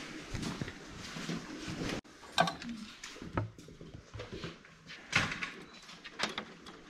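Scattered clicks and light knocks of hands working wires and plug-in terminal connectors inside a home battery's open control unit, with about four sharper clicks in the second half.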